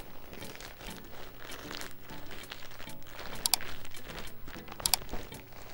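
Plastic packaging bag crinkling and rustling as a hoodie is handled inside it. There are irregular crackles throughout and a few sharper ones about three and a half and five seconds in.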